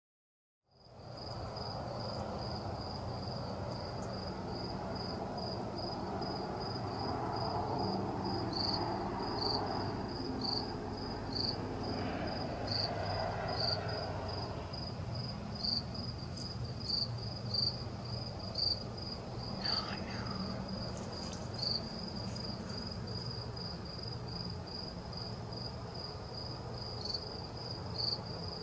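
A cricket chirping at night: a steady, even run of short, high-pitched chirps, a few a second, over a low background hum.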